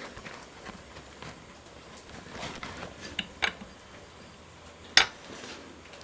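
Scattered metallic clicks and small clanks as engine parts and tools are handled, with two quick clicks about three seconds in and one sharp, louder clack about five seconds in.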